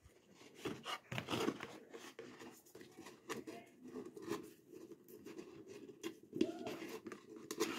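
Hands handling a hollow plastic pumpkin and pushing thin ribbon through small holes in it: scattered light rustles, scrapes and clicks.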